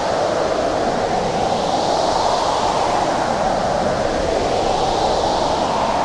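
Blizzard wind blowing steadily as a dense rushing noise, its higher hiss swelling and easing twice.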